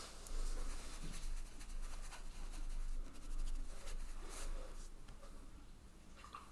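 Round watercolour brush dabbing and scrubbing wet paint into a patch on cold-pressed cotton watercolour paper: a faint, scratchy rustle that dies away after about five seconds.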